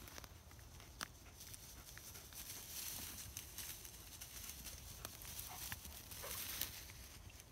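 Faint rustling and swishing of tall dry grass as someone walks through it, swelling twice, with a few sharp clicks.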